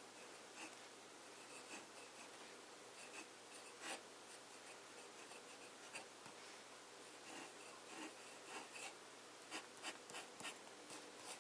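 Italic-nib fountain pen writing on paper: faint, irregular scratches of the nib as letters and then short hatching strokes are drawn.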